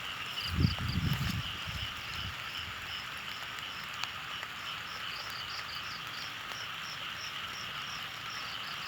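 A chorus of frogs and insects: a steady dense trilling with short high chirps repeating several times a second. A few low thumps come about a second in.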